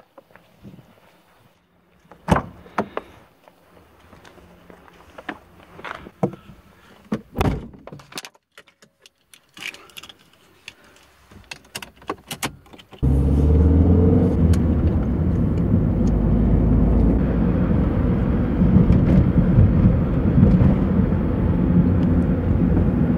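A string of separate clicks, knocks and key jingles as the driver gets into a car. About thirteen seconds in, the car's engine comes on abruptly and then runs steadily, heard from inside the cabin as the car drives along.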